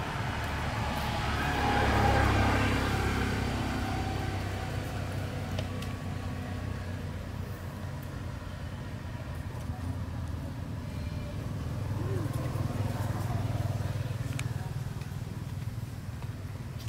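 Motor vehicles passing at a distance: a low rumble that swells and fades, once about two seconds in and again around twelve seconds in.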